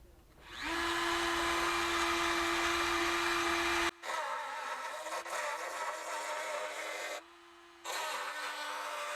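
Small high-speed electric power tool cutting a piece for a bench power panel: the motor whines up about half a second in, stops briefly twice and restarts each time, its pitch wavering under load in the later runs.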